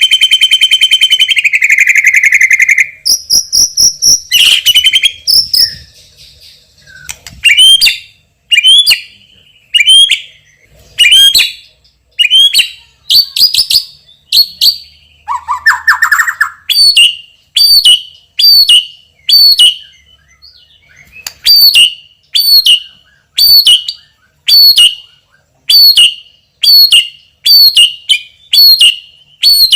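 White-rumped shama (murai batu) singing loudly. It opens with a rapid buzzing trill, then repeats a sharp whistled note sweeping downward roughly once a second, with a short lower buzzy phrase in the middle: a song packed with filler phrases (isian).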